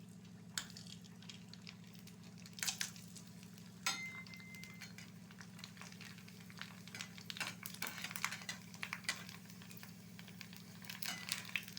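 Pani puri shells frying in hot oil: faint sizzling and crackling over a steady low hum, with a few sharp clicks in the first four seconds. The crackling grows denser in the second half as the puris puff up.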